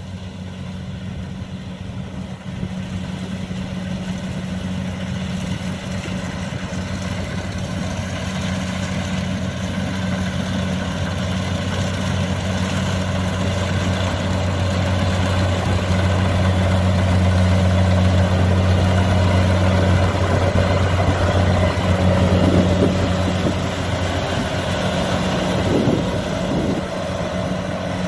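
Kubota DC-70 combine harvester's diesel engine running steadily under harvesting load, with a deep even hum. It grows louder toward the middle and eases off somewhat near the end.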